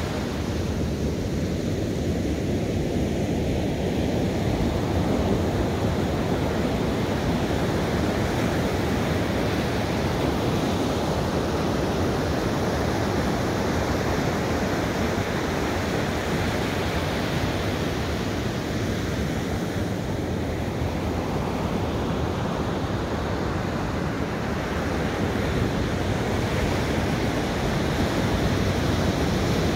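Ocean surf breaking on a sandy beach: a steady rushing wash of waves that slowly swells and eases as sets break and run up the sand.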